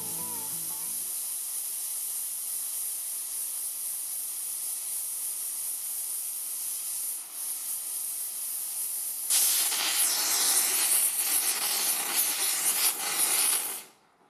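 Hand-held gas torch flame hissing steadily as it heats a steel rivet in a steel channel. About nine seconds in, the flame gets much louder and fuller, then cuts off suddenly near the end as the torch is shut off.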